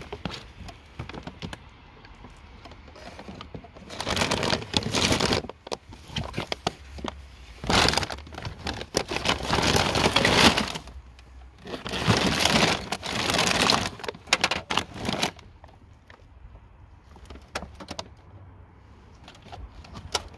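Plastic shopping bags and the objects in them being handled and shifted: crinkling, crackling rustles with small clicks and knocks, in three longer spells about 4, 8 and 12 seconds in.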